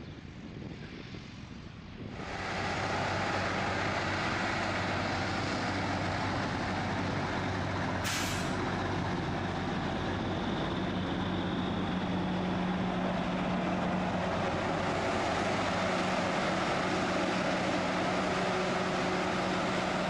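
Diesel semi truck and potato-harvesting machinery running close by with a steady engine drone, which grows much louder about two seconds in. A brief hiss of air sounds about eight seconds in.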